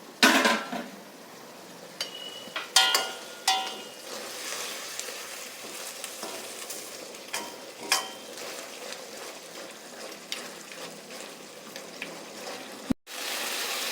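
Chicken pieces sizzling in coconut oil in a pan, now that their released water has cooked off. Several ringing clinks of a spoon against the pan come from stirring, most of them in the first half.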